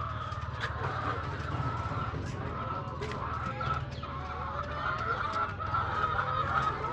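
A flock of chickens clucking and calling, many short overlapping calls with scattered sharp ticks, over a steady low hum.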